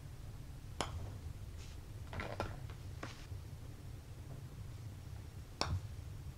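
Maltby Moment XI mallet putter striking a golf ball twice, first a Srixon Q-Star and then a Titleist Pro V1, each a short sharp click, with the second the louder. About a second and a half after each strike comes a softer clatter as the ball reaches the cup.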